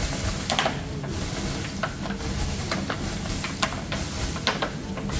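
Water squirted from a plastic bottle with a holed cap onto the hot walls of a tandoor, sizzling and hissing into steam, with irregular sharp crackles over a steady low rumble.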